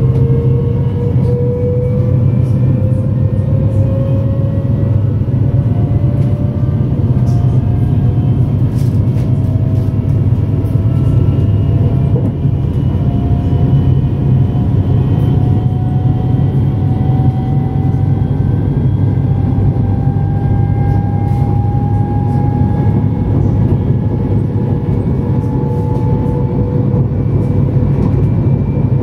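Siemens Mireo electric multiple unit accelerating under full power, heard from inside the train: the traction motors' whine climbs slowly in pitch over a steady rolling rumble.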